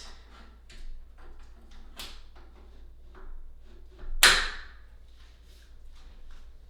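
Exercise bike handlebar post being adjusted: a series of light clicks and knocks, with one louder sliding clunk about four seconds in.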